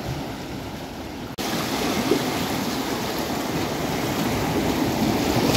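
Sea waves washing and swirling among shoreline boulders: a steady rushing of seawater over rock that turns suddenly louder about a second and a half in.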